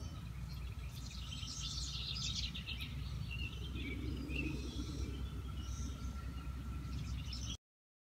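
Birds chirping over a faint, steady drone from a distant chorus of 17-year periodical cicadas, with a low background rumble; the sound cuts off abruptly near the end.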